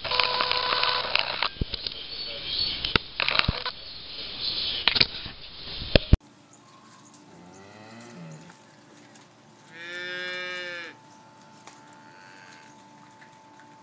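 A cow mooing: one loud drawn-out call about ten seconds in, lasting about a second, with fainter calls shortly before it. The first six seconds hold rustling with sharp knocks and clicks on the microphone before the sound cuts away.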